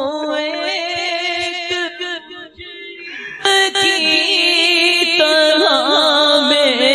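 Devotional chanting: a melodic voice sliding between held notes over a steady drone. It dips briefly, then comes back louder and fuller about three and a half seconds in.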